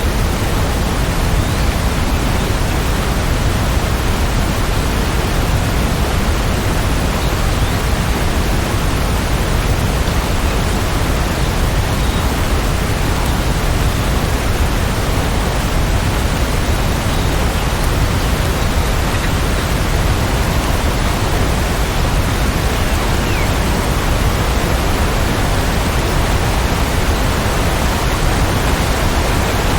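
Steady, even rain, a constant hiss with no separate drops, rumbles or changes.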